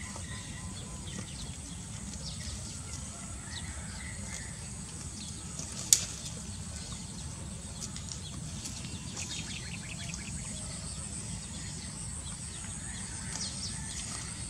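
Outdoor ambience: a steady high insect drone with scattered short bird chirps over a constant low rumble, and one sharp click about six seconds in.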